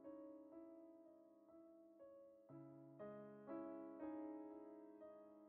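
Soft background piano music, a slow melody with a new note about every half second to a second.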